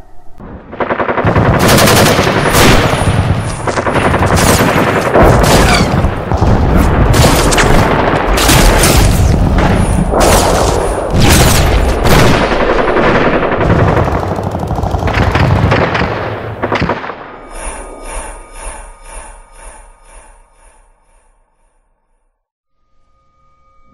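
Added sound effect of automatic gunfire: a long run of rapid shots lasting about a quarter of a minute, then a tail of faint, evenly spaced pulses that fades away near the end.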